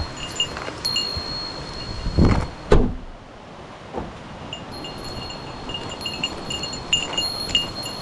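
A small metal bell tinkling in short repeated rings over a longer held ring. Two heavy thumps come a little past two seconds in.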